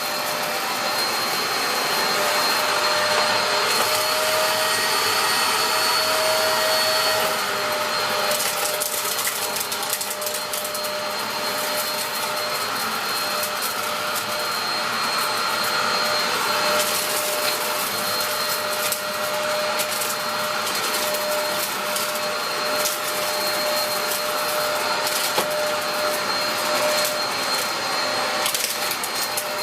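Dyson DC03 upright vacuum cleaner running steadily, with a constant motor whine under the suction noise. Frequent small crackles and ticks come through as debris is drawn in.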